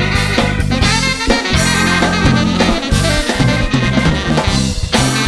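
Funk instrumental played by a live band: tenor saxophone over a drum kit groove.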